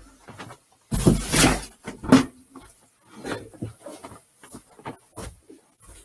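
Rustling and soft knocks of a fursuit being put on and adjusted, in irregular bursts, the loudest about a second in.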